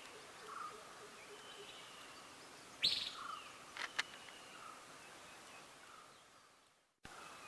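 Faint outdoor background with birds chirping now and then, and two sharp clicks about three and four seconds in from small metal spinning-reel parts, the bearing lock clips, being handled and fitted. The sound cuts out briefly near the end.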